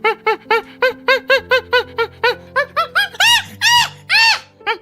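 A rapid series of short squeaking animal calls, each rising and falling in pitch, about four a second, then three longer, louder squeals near the end, over background music.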